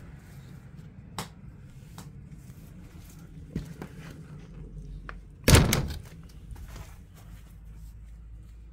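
A single heavy thunk a little past halfway, with a brief ring after it, among a few lighter knocks and clicks.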